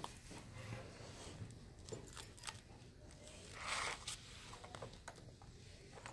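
Handling noises as things are moved about on a tabletop: scattered light clicks and taps, with one short scraping rustle about halfway through.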